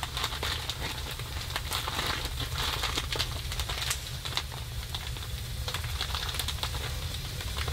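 Plastic Ziploc bag crinkling and rustling as it is handled and folded, many small irregular crackles, over a steady low rumble.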